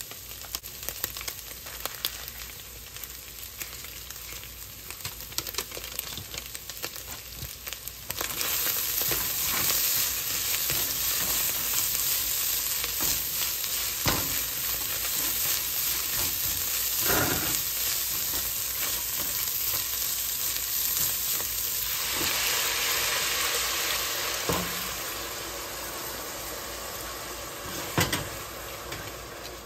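Ground beef and Rice-A-Roni frying and being stirred in a hot pot. About eight seconds in, the sizzle jumps to a much louder steady hiss as beef broth is poured in. It eases off late on, with a few knocks of the spatula against the pot.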